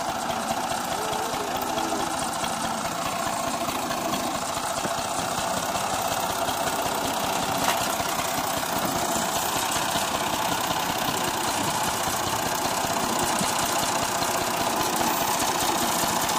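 Massey Ferguson tractor's diesel engine running steadily as it pulls a trailer loaded with sacks off a ferry boat and up the bank, growing a little louder near the end.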